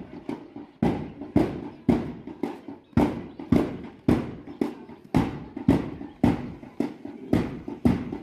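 A drum beating a steady marching beat of about two strokes a second for a parade march.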